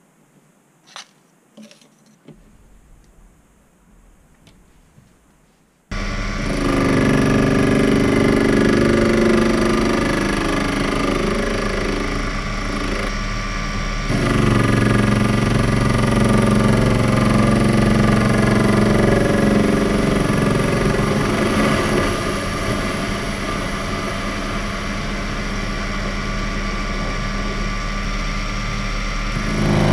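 A few light clicks of a chuck key and handling, then about six seconds in a Proxxon PD 250/e mini lathe starts abruptly and runs steadily, turning the outer face of a steel part. The motor and gear whine is mixed with the noise of the cutting tool on the steel, louder for a few seconds from about fourteen seconds in.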